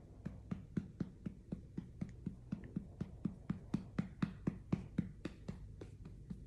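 A hand patting a newborn's back lightly and evenly, about four pats a second, to bring up a burp.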